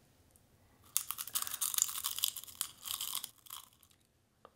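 Crisp crunching as a salted zebra tarantula is bitten in half and chewed. It is a run of crackly crunches lasting about two seconds, starting about a second in, with a few fainter crunches after.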